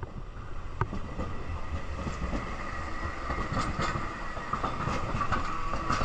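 Streetcar passing close by, its wheels rumbling and knocking on the rails, with a steady high whine building in the second half as it goes past.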